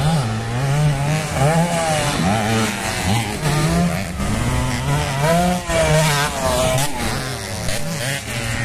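Dirt bike engines revving, the pitch rising and falling over and over as the throttle opens and closes.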